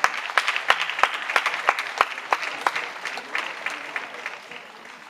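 Audience applauding, with a few sharp claps close by standing out from the crowd's clapping, which fades away near the end.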